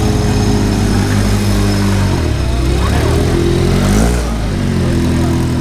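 Off-road race buggy engines running and revving as the buggies roll slowly past. The engine pitch dips and climbs again around the middle.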